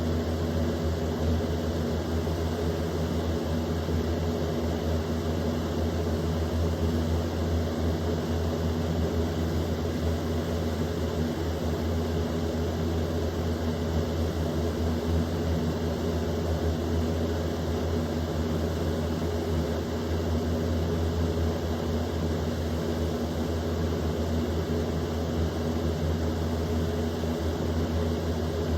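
Electric box fan running steadily on high speed: a constant rush of air from the blades over a low motor hum.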